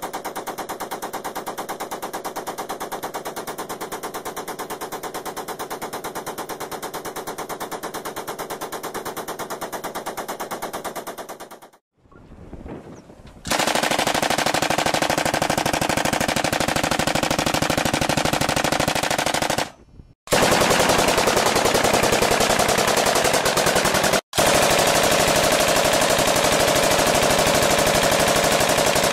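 Belt-fed machine guns firing long, continuous bursts of automatic fire. There are separate strings of fire with short breaks between them. The string that starts after a brief lull, a little over a third of the way in, is louder than the first.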